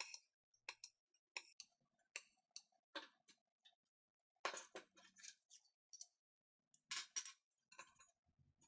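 Steel box-section parts handled on a rubber-matted workbench: scattered light knocks and clinks at an irregular pace, bunched more densely about halfway through and again around seven seconds.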